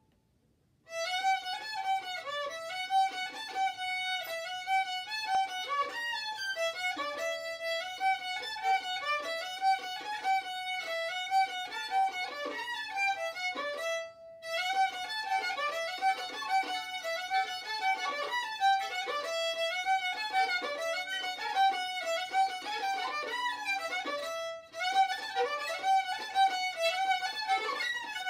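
Solo violin, bowed, playing a fast run of even eighth notes. It starts about a second in and pauses briefly twice, once near the middle and once about three-quarters through.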